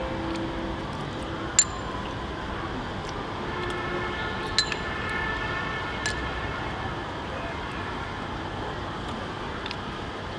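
A few sharp clinks over a steady background hiss; the loudest comes about one and a half seconds in, with two more a few seconds later.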